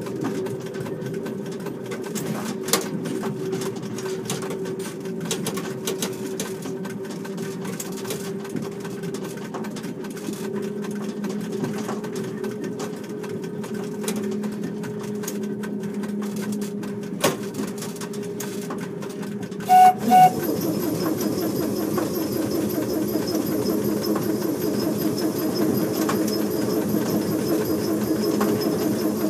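Petit Train Jaune electric railcar running along the track: a steady motor hum with scattered clicks from the wheels and rails. About twenty seconds in, two short horn toots sound, and the running noise then turns louder with a fast, dense rattle.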